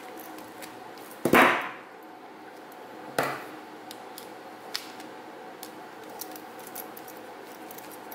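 Small wire cutters snipping off the excess end of a lamp cord wire about a second in, followed by a second sharp clack about three seconds in and light, scattered clicks of a screwdriver on the lamp socket's terminal screw.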